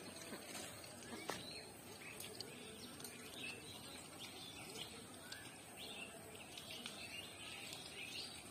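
Faint small birds chirping over a quiet outdoor hush, with a single sharp click about a second in.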